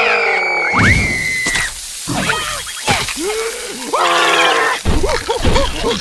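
Cartoon larva characters screaming and squealing: one long high scream, then shorter wailing cries. A wet splat about a second in as they land on a hot okonomiyaki, with a steady sizzling hiss behind.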